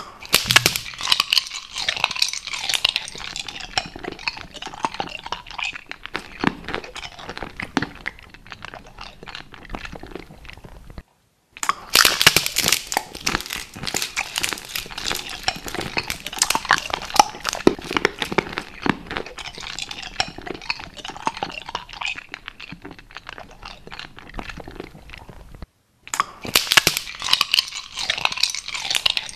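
Clear plastic make-up palette packaging being handled: dense, loud crinkling and crackling, with clicks of the plastic, broken twice by sudden silent gaps.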